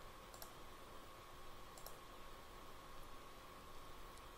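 Near silence with a faint steady hum. A computer mouse clicks softly twice, about half a second in and again near two seconds.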